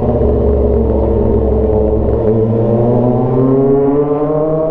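Kawasaki ZX-25R's 250 cc inline-four running through a straight-pipe GP exhaust in third gear, holding steady revs at first, then rising gradually from a little before halfway as the bike picks up speed.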